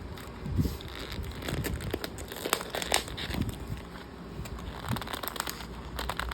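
Takeaway food packaging crinkling and crackling in irregular handling noises as it is worked open with some difficulty.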